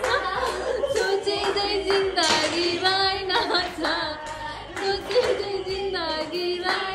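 A Nepali Teej song playing: a woman singing over a steady drone and a regular beat.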